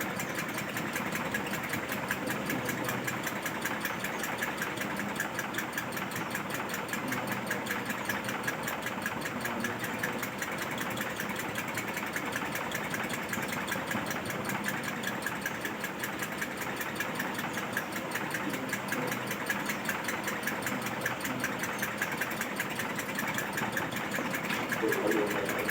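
A machine running steadily, with a rapid, even mechanical clatter that does not change.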